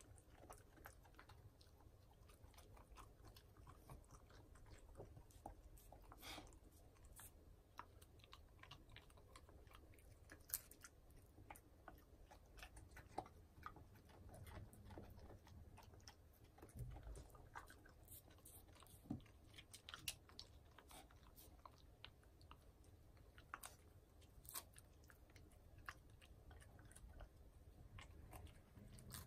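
Shiba Inu chewing and licking at broccoli: faint, irregular small crunches and wet mouth clicks.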